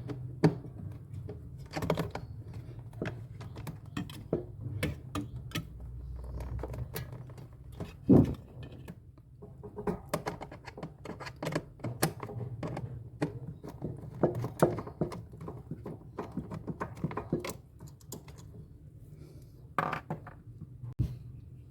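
Irregular clicks, taps and knocks of hands and tools working on a refrigerator's parts during a repair, with one louder knock about eight seconds in, over a faint steady low hum.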